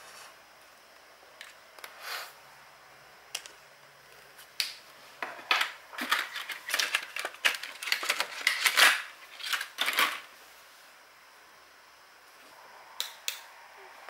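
Stationery and paper being handled on a journal page. A few scattered clicks, then a busy run of quick clicks and paper rustles lasting about five seconds, and two sharp clicks near the end.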